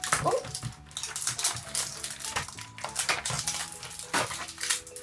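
Cardboard and plastic toy packaging rustling and clattering as it is pulled apart by hand, with irregular crinkles and light taps.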